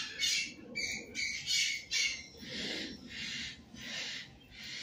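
Birds squawking: a run of harsh, repeated calls about two a second, louder for the first two seconds and softer after.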